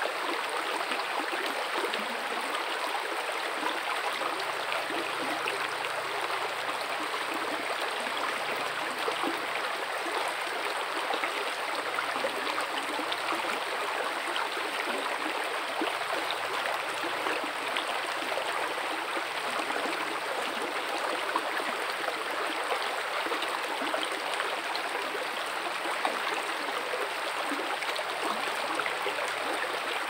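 Mountain river flowing: a steady, continuous rush of water.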